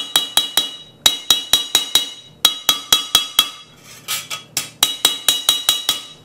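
Rapid hammer blows on the bent sheet-steel backing plate of a 1930 Briggs & Stratton FH engine, laid on a steel plate to be straightened. The blows come in quick runs of four to six, with short pauses between, and each one rings bright and metallic.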